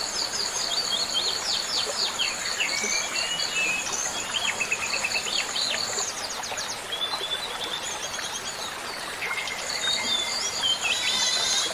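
Several small birds chirping and singing in quick, varied calls, over a steady high insect buzz that fades out midway and returns near the end.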